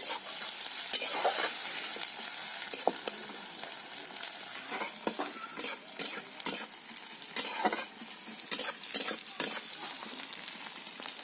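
Sliced onion sizzling in hot oil in an iron kadai, with a metal spatula scraping and clinking against the pan at irregular intervals as it is stirred.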